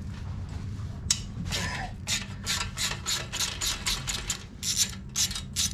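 Hand socket ratchet clicking in quick strokes as it loosens a bolt on the Yamaha R6's stock exhaust header pipe, with a steady low hum underneath.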